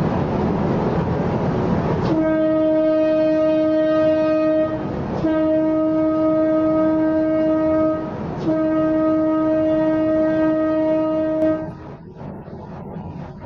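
A loud rushing noise, then three long blasts of a single-pitched horn, each about three seconds long with short breaks between them. The horn stops suddenly near the end.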